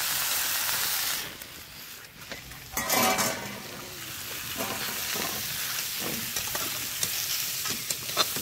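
Pieces of young jackfruit and potato sizzling in hot oil in an iron wok; the sizzle falls away about a second in as the wok comes off the fire. A metal spatula then scrapes and taps against the wok as the fried pieces are scraped out into a steel bowl, with a few sharp clicks near the end.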